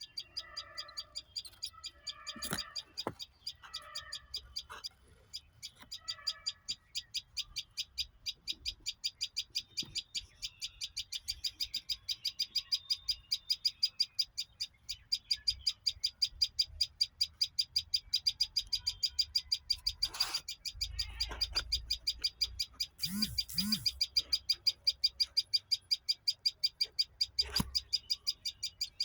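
A bird chirping over and over in a fast, even series of short high chirps, about four or five a second, growing somewhat louder as it goes on. A few lower calls come in the first few seconds, and there are several sharp knocks.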